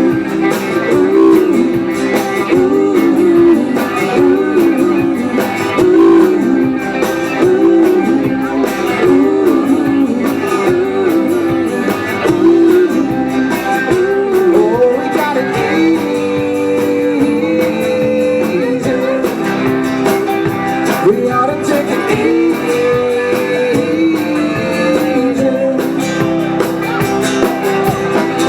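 Live rock band playing, with guitar prominent and some singing.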